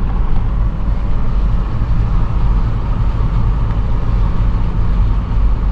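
Steady engine and road rumble heard from inside a truck cab while driving.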